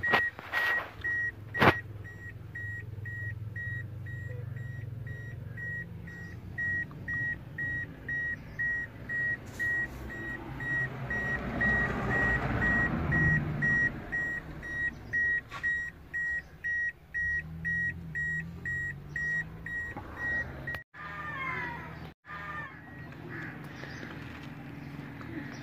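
Electronic beeping: one high-pitched tone pulsing on and off at an even pace, over a low steady rumble, cutting off suddenly near the end.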